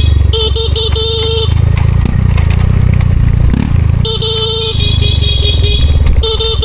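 Motorcycle horn honked in a few short toots about a second in, then a longer blast at about four seconds and again near the end, over a motorcycle engine running. The honking is a signal to riders further down the trail that help is on its way.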